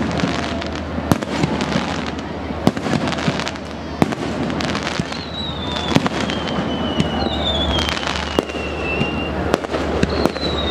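Fireworks display: a rapid, irregular run of sharp bangs over dense crackling, with several whistles falling in pitch in the second half.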